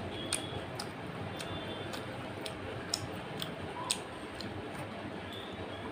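Mouth sounds of chewing food: irregular sharp wet clicks and smacks, about two a second, over a steady background hiss.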